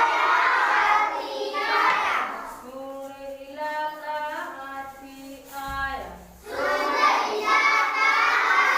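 A group of children's voices singing loudly together. In the middle a single voice holds sustained notes on a few steady pitches, then the group comes back in.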